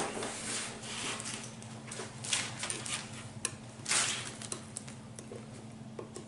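Scattered light clicks and short rustles of hands fitting a plastic-wrapped TV stand leg and turning a screw into it with a Phillips screwdriver, over a faint steady hum.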